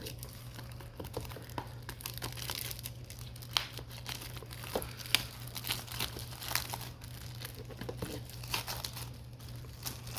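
Plastic packaging of a 4K/Blu-ray case crinkling and tearing as it is unwrapped and opened, with many small clicks and two sharper snaps in the middle.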